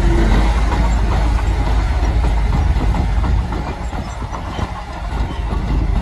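Komatsu D60P crawler bulldozer's diesel engine running, with the rattling clatter of its steel tracks as the dozer reverses. The sound dips a little past the middle and then comes back up.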